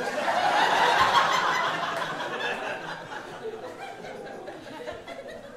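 Comedy club audience laughing, swelling at the start, peaking about a second in, then fading to scattered chuckles.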